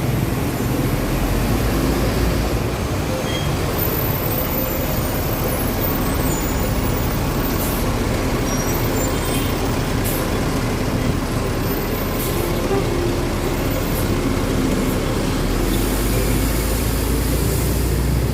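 TransJakarta bus engine running steadily in street traffic, with a few short hisses in the middle and a longer hiss near the end.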